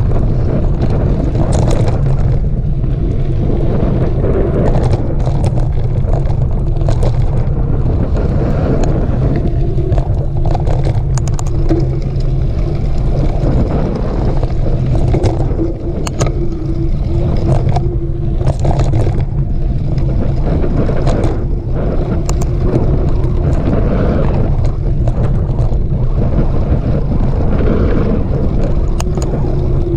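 Steady wind rumble on the camera microphone while a mountain bike is ridden over rough trail, with frequent short rattles and knocks from the bike.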